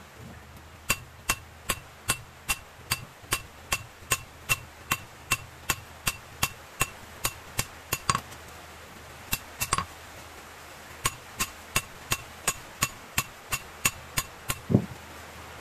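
Hand hammer forging a red-hot machete blade of leaf-spring steel on a steel anvil: sharp ringing blows at about two to three a second, pausing briefly twice. Near the end comes a single louder, duller thump.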